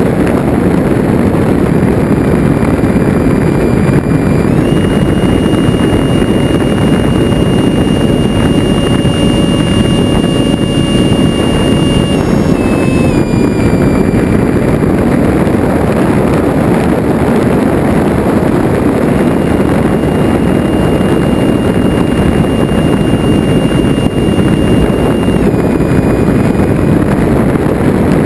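A 70 mm electric ducted fan jet in flight, heard from a camera on its back: heavy wind rush over the microphone with the fan's thin whine. The whine steps up in pitch about four seconds in and drops back a little after twelve seconds, then rises again near twenty seconds and falls back near twenty-five.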